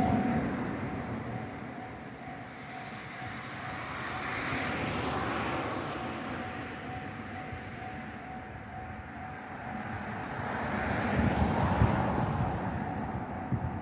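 Japanese level-crossing warning alarm ringing steadily at one high pitch, under the rumble of passing traffic on the tram line that swells about four seconds in and again near the end.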